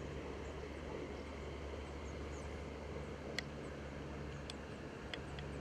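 Steady outdoor background: an even low rumble and hum, with a few faint high chirps and some light clicks in the second half.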